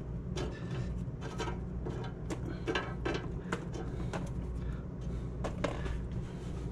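Fries being handled on a perforated metal pan: irregular light clicks and taps over a steady low hum.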